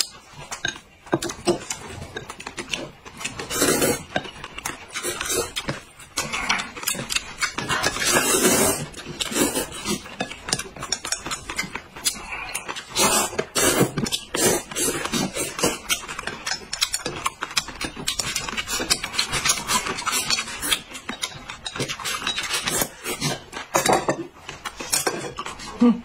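Two people slurping and chewing noodles in loud, wet gulps, with occasional clicks of chopsticks against ceramic plates.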